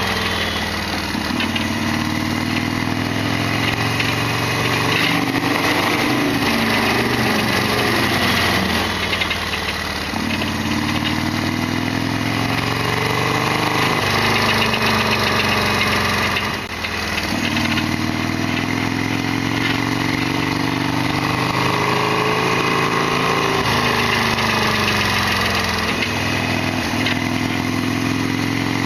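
Harley-Davidson Sportster XL1200R's air-cooled V-twin engine running under way, its pitch climbing and then falling back several times as it accelerates and shifts.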